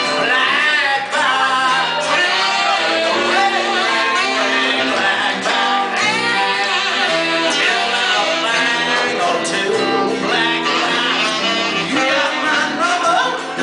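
Live band music: guitar and bass guitar playing under a lead melody line that bends up and down.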